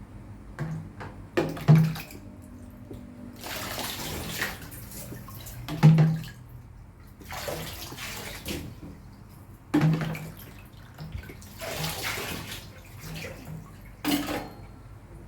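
Water spraying in four bursts of a second or two each while a cat is bathed, with several short dull knocks in between, the loudest near the start and about six seconds in.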